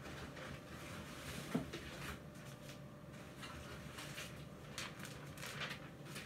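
Faint scattered rustles and knocks of a cardmaking kit's packaging being handled and opened, with one louder knock about a second and a half in.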